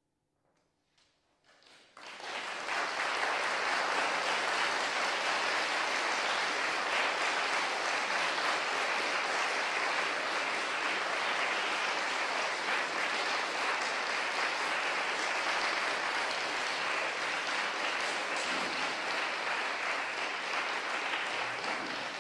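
Audience applauding: a few scattered claps, then full steady applause from about two seconds in.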